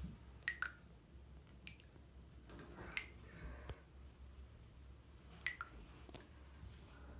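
Faint drips and small pops of water in a bath where a Lush bath bomb is fizzing: a few short plinks, some in quick pairs, spaced a second or more apart over a low hum.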